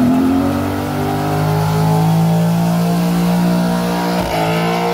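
A car engine revved hard, sagging slightly at first and then held steady at high revs, before dropping off sharply at the very end.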